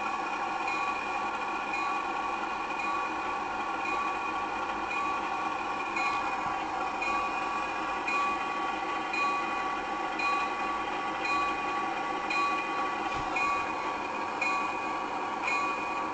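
Locomotive bell ringing steadily, struck about once a second, over the noise of the idling locomotive.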